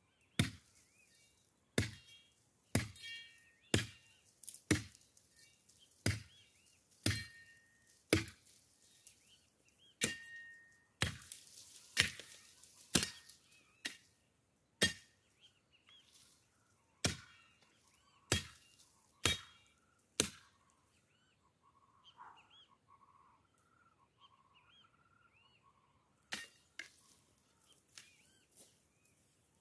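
Machete chopping brush and branches, sharp strokes about once a second, with rustling of cut branches. The strokes stop for several seconds while birds chirp faintly, then start again in quicker strokes near the end.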